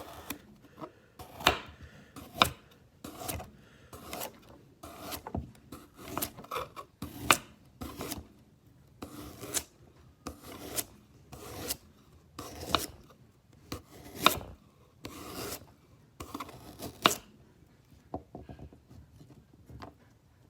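Knife cutting through vegetables against a wooden board, repeated rasping, scraping strokes at an uneven pace of a little over one a second.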